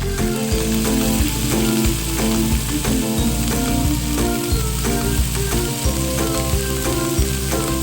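Battered cream dory fish pieces frying in hot oil, a steady sizzle, with background music.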